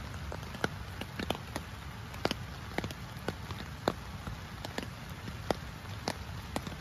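Light rain beginning: single raindrops strike the hammock shelter in sharp, irregular taps, about two a second, over a steady hiss.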